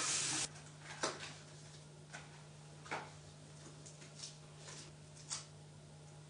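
A bathroom tap running into the sink, shut off about half a second in, followed by about six soft, separate clicks as hands handle something small, over a steady low hum.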